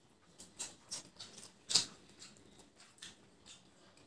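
Eating sounds: hands mixing and scooping biryani rice on plates and mouth smacking while chewing, a series of short wet clicks, the loudest just under two seconds in.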